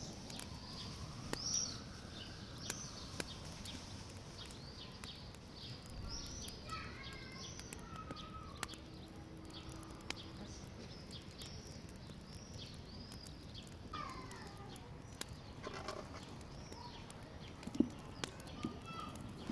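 Small birds chirping outdoors: a steady string of high, arched chirps, roughly two a second, with a few lower calls mixed in. Occasional faint clicks, and one sharp knock near the end.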